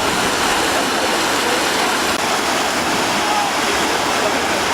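Waterfall rushing, a loud and steady wash of falling water, with faint distant voices of people over it.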